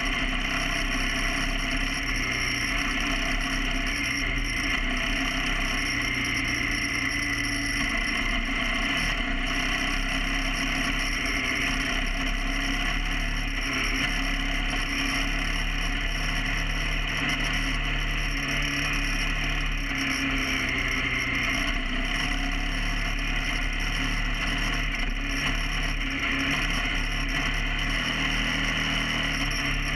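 KTM 990 Adventure R's V-twin engine running steadily under way, its pitch stepping up and down as the throttle and gears change.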